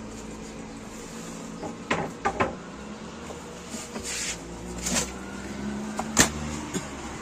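Scattered knocks and thuds as a large slab of raw buffalo meat is lifted and handled on a butcher's table, the sharpest knock about six seconds in.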